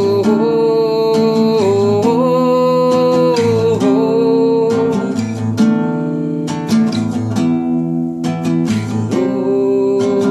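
Acoustic guitar strummed, with a singing voice holding long drawn-out notes over it in the first few seconds and again near the end.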